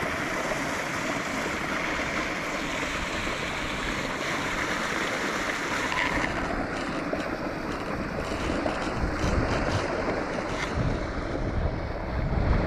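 Creek water rushing steadily over rocks, with wind buffeting the microphone in low rumbles during the second half.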